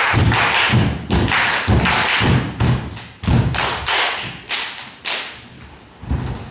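A group of dancers clapping and stomping bare feet on a wooden stage floor in unison, a steady beat of about three hits a second that fades out after about five seconds.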